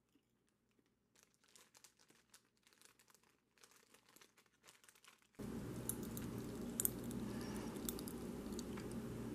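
Faint, sparse crackling clicks of popping candy bursting in the mouth while eating a milk chocolate bar with popping candies. It is nearly silent at first, and a low steady room hiss comes in about halfway through.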